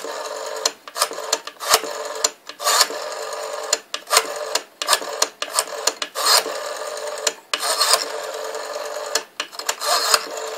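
Rotary telephone dial being wound round and spinning back again and again as a number is dialled quickly, its return making a rapid clicking rasp. A steady tone runs underneath, broken by short gaps.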